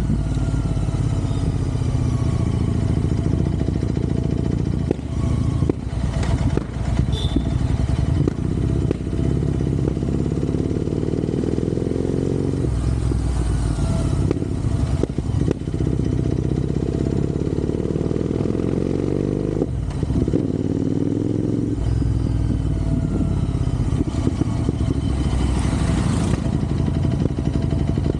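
Royal Enfield Interceptor 650's parallel-twin engine running on the move, its speed rising and falling a few times. A brief rushing hiss comes near the end.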